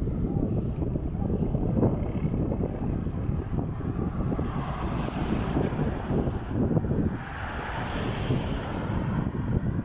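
Wind buffeting the microphone of a camera carried on a moving bicycle: a steady, heavy low rumble that flutters constantly.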